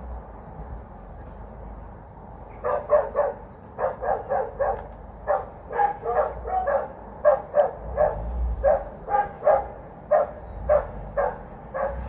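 A dog barking over and over, two to three barks a second, starting about three seconds in.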